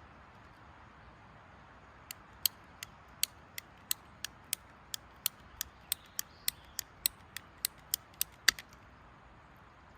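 A series of sharp mechanical clicks, about three a second, starting about two seconds in and stopping about a second and a half before the end, the last one the loudest.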